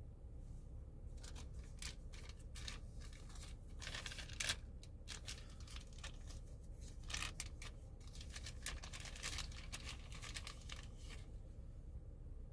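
Close-miked crackling and crunching: a dense run of sharp, crisp crackles that starts about a second in, peaks about four and a half seconds in, and dies away near the end.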